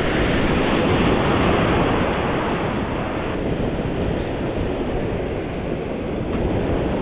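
Ocean surf breaking and washing on a reefy beach, loudest in the first couple of seconds, with wind buffeting the microphone.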